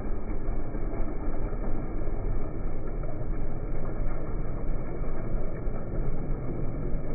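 Kymco MXU ATV engines running while the quads ride through a shallow, muddy river, a steady, dense low rumble with no clear changes.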